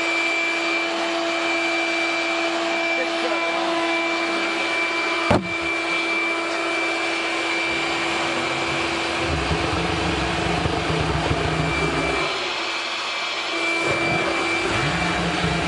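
An electric blower runs steadily with a motor whine, forcing air into a homemade propane pulsejet. About five seconds in there is one sharp pop of ignition. From about eight to twelve seconds, and again briefly near the end, comes a low, uneven combustion rumble as flame bursts from the tailpipe. The pulsejet fires in pops and bursts without settling into a sustained run.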